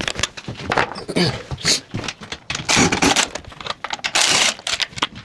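Impact gun with a T27 Torx bit in several short bursts, loosening the bolts that hold a motorcycle subframe, with clicks of metal parts being handled in between.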